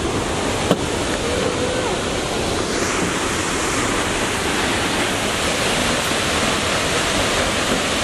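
Steady rushing of a waterfall, which grows brighter and fuller about three seconds in. There is a single short tick under a second in.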